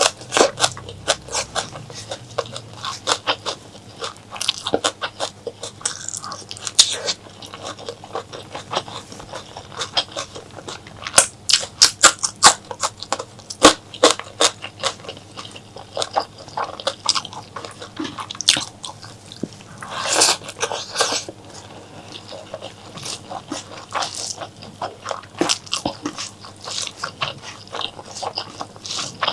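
Close-miked eating: chewing and biting on spicy mutton curry and honeycomb tripe, a dense run of mouth clicks and smacks, louder from about eleven to fourteen seconds in and again around twenty seconds.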